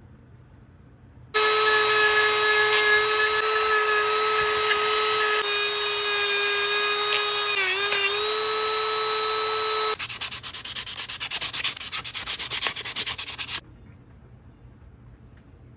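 A small high-speed power tool runs with a steady whine while it rubs and scours a metal socket; the pitch dips briefly near the end of the run as it is pressed harder. It is followed by about three and a half seconds of rapid scraping strokes.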